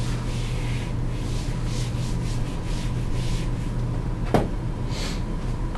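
Repeated scratchy rubbing strokes on a writing surface, about two a second, over a steady low hum; one sharp click a little past four seconds in.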